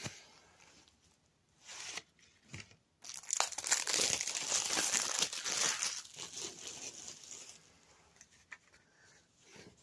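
Packaging on a DVD being torn open and crinkled by hand: a couple of brief rustles, then a long stretch of tearing and crinkling from about three seconds in that dies away near the end.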